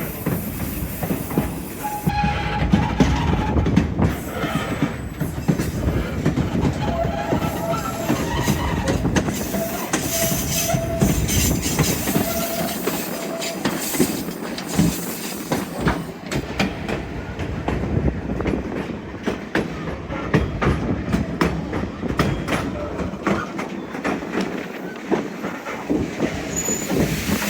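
White Pass & Yukon Route narrow-gauge passenger car rolling along the rails, wheels clicking over the track with brief squeals throughout.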